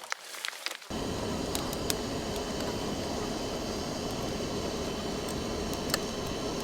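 Steady machine noise, an even rush with a faint hum, starting abruptly about a second in, with a few faint ticks.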